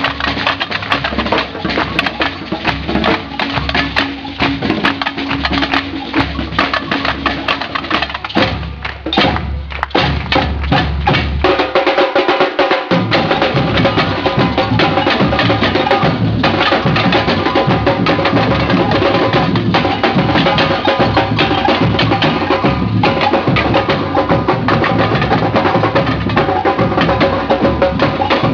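Drum band with large bass drums playing a loud, driving percussion rhythm. The deep drums drop out briefly near the middle, then the full band comes back in.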